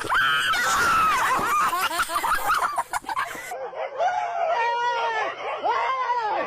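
A dog whining and yowling in a run of wavering, high-pitched cries that drop lower about halfway through.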